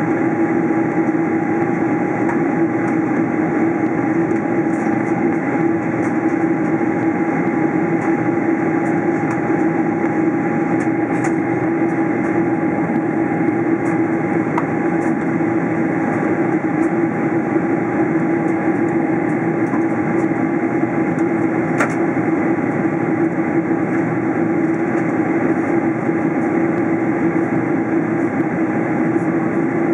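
Steady cabin noise inside a Boeing 777-300 in flight, heard at the window beside the wing-mounted jet engine: a constant roar of engine and airflow with a steady low hum running through it.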